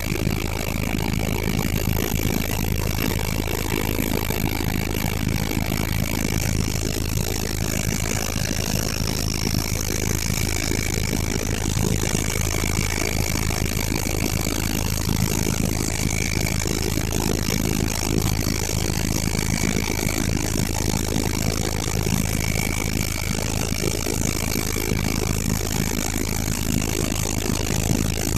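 Helicopter in flight: a steady low drone with constant high-pitched whines on top, unchanging throughout.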